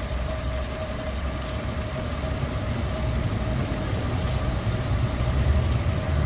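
Toyota 1NR-FE four-cylinder engine running with a steady high-pitched whine over its running noise. This is the engine noise being troubleshot on an engine of about 400,000 km whose timing chain has already been replaced.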